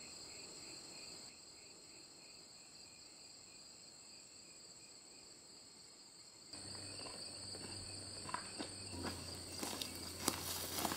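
Insects trilling steadily, a high continuous trill with a softer pulsing chirp under it. About six and a half seconds in the background grows a little louder, and light clicks and rustles begin, getting busier near the end.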